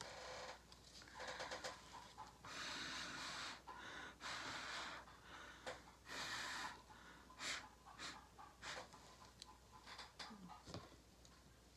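A person blowing through a tube onto wet acrylic pour paint to push it across a tile: five short airy puffs of breath in the first seven seconds, then only faint small ticks.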